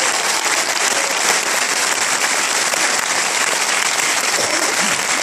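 A large audience applauding, a dense and steady clapping.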